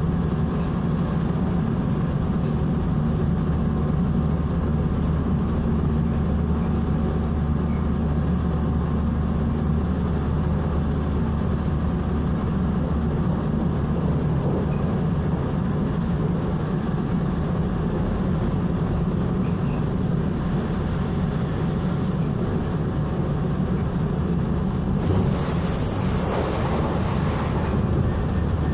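Cabin noise of a Taiwan Railways EMU700 electric multiple unit running at speed: a steady rumble of wheels on rail with a low hum. About twenty-five seconds in, a louder rushing hiss rises for a couple of seconds.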